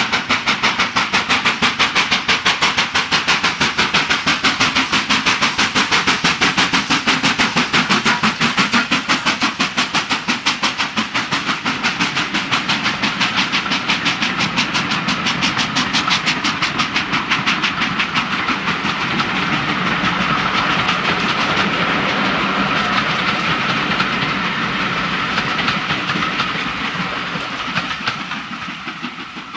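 Steam locomotive working a passenger train past at speed, its exhaust beating rapidly, about four beats a second. After the engine passes, the coaches roll by with a steady rumble, a faint ringing tone and wheels clicking over the rail joints. The sound fades near the end as the last coach goes by.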